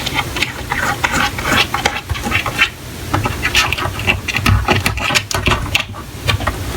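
A cat scratching and pawing at a door: a fast, uneven run of scratchy clicks and rustles.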